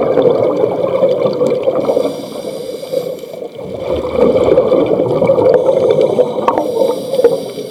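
Water gurgling and bubbling in loud surges, easing off for a second or two between them.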